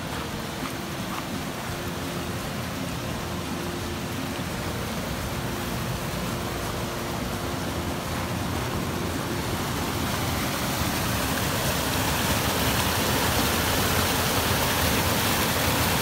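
Muddy floodwater rushing across a dirt road and spilling over an eroded bank: a steady rushing noise that grows louder over the second half.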